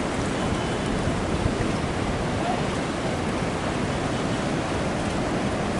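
Steady rush of the swollen Chambal river in flood, an even, unbroken roar of fast-flowing water.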